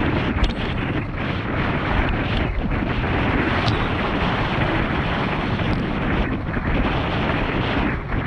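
Heavy wind buffeting on the microphone over water rushing and slapping under a slalom windsurf board planing at speed.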